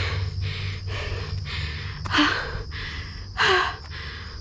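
A trail runner breathing hard in a steady rhythm, with two loud gasping breaths about two and three and a half seconds in.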